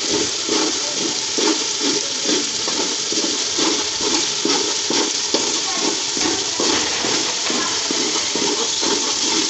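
Onion and spice masala sizzling in ghee in a large aluminium pot while a metal ladle stirs and scrapes it in rhythmic strokes, about two or three a second, during the bhunai (frying) stage.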